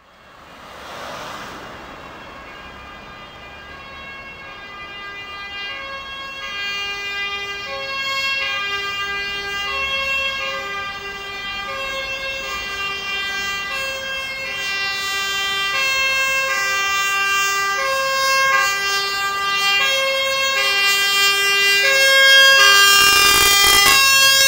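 Fire truck's two-tone Martin horn alternating steadily between a high and a low note, growing louder as the truck approaches. Near the end the truck's engine and road noise swell in as it comes close.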